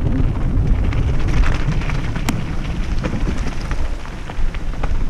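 A mountain bike rolling fast down a wet, rocky track: rumble of tyres on wet gravel and mud, with scattered clicks and rattles from stones and the bike, under wind buffeting on the microphone.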